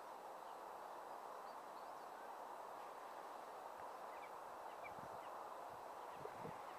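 Faint, steady open-air hiss with a few faint, short bird chirps scattered through it, and a few soft low knocks near the end.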